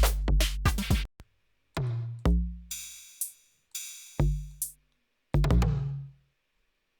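Electronic drum-machine pattern played back from a DAW: a fast run of hits, then a few spaced deep kick thumps with a hissy cymbal-like sound between them. It stops a little after six seconds in.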